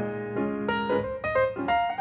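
Background music: a piano melody of quick, separate notes.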